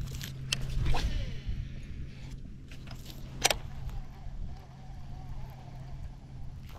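Baitcasting reel being cranked on a lure retrieve, a steady low whir, with a few sharp clicks, the loudest about three and a half seconds in.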